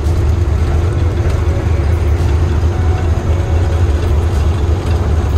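Heavy goods truck's diesel engine running steadily on the move, a loud low drone with road noise, heard from inside the cab.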